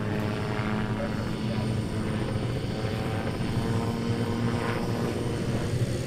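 AutoGyro Calidus autogyro in flight: its four-cylinder Rotax engine driving the pusher propeller, a steady, even drone.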